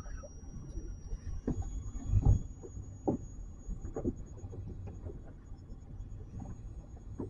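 Wind rumbling on the microphone, with a few dull knocks; the loudest comes about two seconds in.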